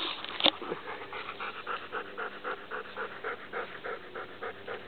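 Two sharp clicks near the start, then rapid, even panting at about five breaths a second.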